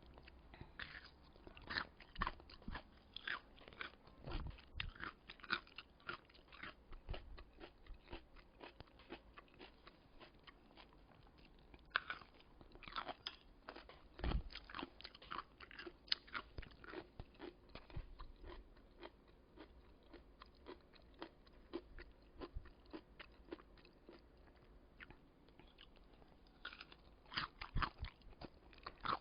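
Close-up chewing of kkakdugi (cubed radish kimchi): crisp, moist crunches of the raw radish breaking between the teeth, coming in quick runs, thinning out a little past the middle and picking up again near the end.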